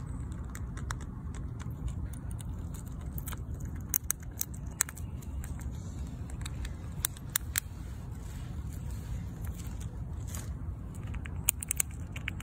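Fox squirrel gnawing and chewing food up close: irregular crisp crunching clicks, over a steady low rumble.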